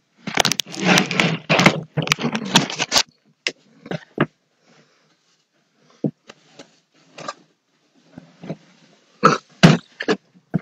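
A broom sweeping a floor: a dense run of scraping strokes for the first three seconds, then scattered short strokes and knocks.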